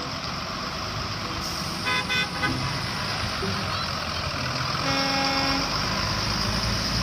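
Cartoon bus sound effects: steady vehicle running noise, with a quick run of short horn beeps about two seconds in and one longer horn toot around five seconds in.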